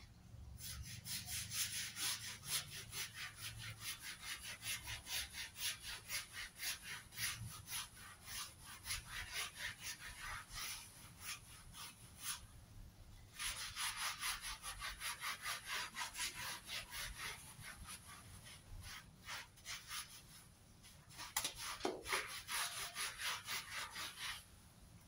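Hand scrub brush scrubbing a wet, soapy fabric bath mat on a tiled floor: quick back-and-forth strokes at about three a second, in long runs broken by short pauses around 12 seconds and 20 seconds in.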